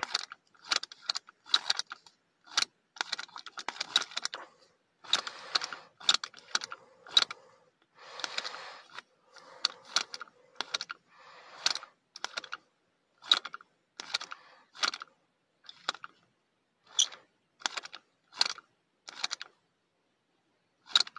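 Plastic Happy Meal action figure's gimmick worked over and over by hand: sharp plastic clicks, one or two a second and unevenly spaced, some followed by a short rattle. They stop near the end, with one last click.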